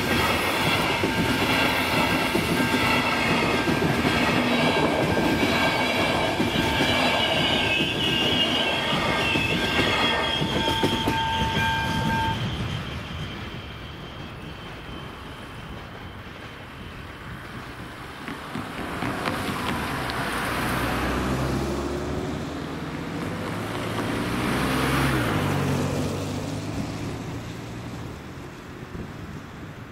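A passenger train runs past over the level crossing, its wheels clattering on the rails, with steady high ringing tones; the tones and the train noise cut off together about twelve seconds in. After that, two cars drive over the crossing one after the other, their engines swelling up and fading.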